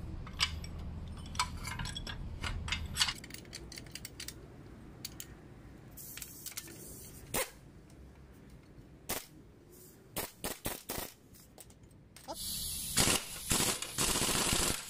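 Metal clinks and clicks as a coil-spring compressor is fitted onto a car's front strut spring, then a pneumatic impact wrench runs in a loud rattling burst for about two and a half seconds near the end, tightening the compressor's threaded rod to squeeze the spring.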